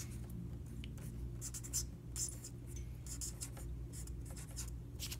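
Pen writing on a lined paper index card: quick, irregular scratching strokes over a steady low hum.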